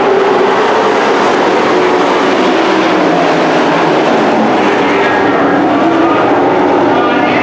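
A field of IMCA dirt-track race trucks running together, their engines making a loud, steady din.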